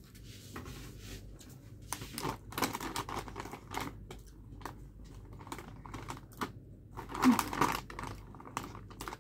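Plastic snack bag of Mr. Chips crinkling as a hand reaches in, mixed with crisp crunching of chips being eaten. The sound is a run of irregular short clicks and crackles, busiest about two seconds in and again around seven seconds.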